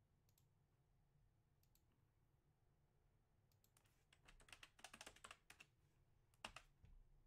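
Faint typing on a computer keyboard: a quick run of key taps in the second half and one sharper click near the end, over low room hum.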